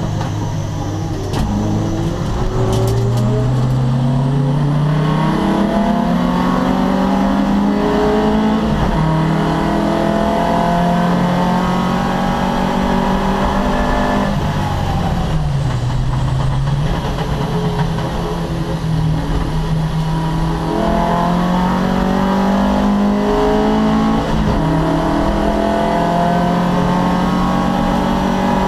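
Opel Kadett C race car engine at racing speed, its pitch climbing through the revs and dropping at gear changes. About halfway through it falls sharply as the car slows, then climbs hard again.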